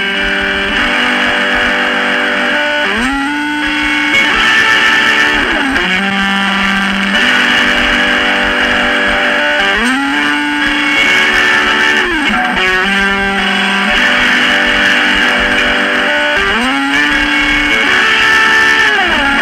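Electric guitar music in a lo-fi cassette recording: sustained fuzzy chords that slide up and back down the neck every few seconds, with very little bass.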